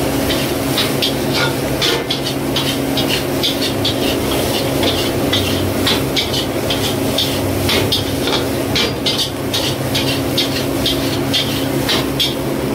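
Metal spatula scraping and clanking against a steel wok as fried rice is stir-fried, several quick strokes a second, over a steady low hum.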